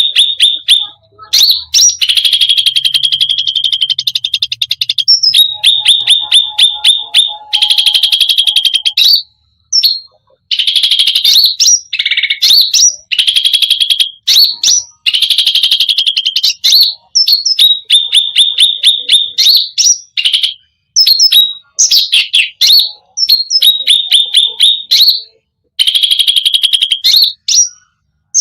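Cucak rante (cucak ranting) songbird singing continuously in a fast, full-repertoire song: rapid rattling runs of sharp, high notes in phrases of a second or two, broken by short pauses.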